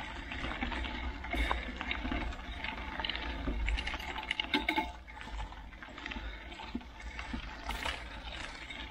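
Mountain bike tyres rolling over a gravel trail, with a steady low wind rumble on the microphone and scattered sharp clicks and rattles from gravel and the bike.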